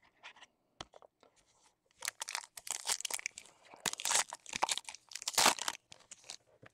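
A baseball card pack's wrapper being torn open and crinkled, in a run of quick noisy rips from about two seconds in to near the end, after a few light handling clicks.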